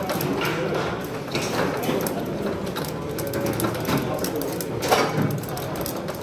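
Foosball in play: the ball knocking sharply off the plastic players and the table, with the rods clacking, the loudest knock about five seconds in. A murmur of voices runs underneath.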